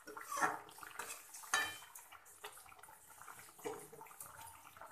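Spatula scraping and clinking against a metal kadai while a curry is stirred: a few light, separate strokes.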